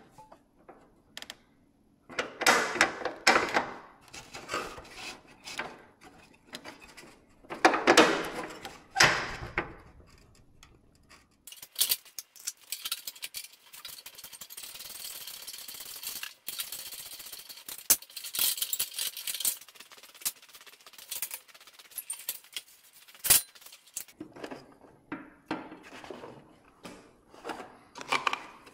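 Metal tools and parts clattering and scraping as they are handled. About twelve seconds in, a steady hiss starts and runs for about twelve seconds with sharp clicks through it, then the clatter returns.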